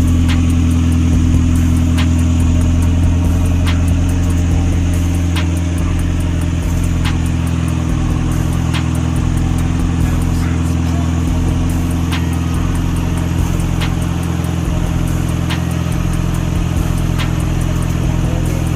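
Toyota 4E-FTE turbocharged four-cylinder engine idling steadily, with a faint click repeating about every second and a half.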